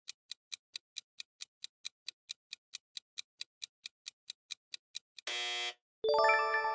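Quiz countdown timer sound effect: clock-like ticking at about four to five ticks a second, cut off about five seconds in by a short buzz. A bell-like chime then rings on, marking the end of the thinking time and the reveal of the answer.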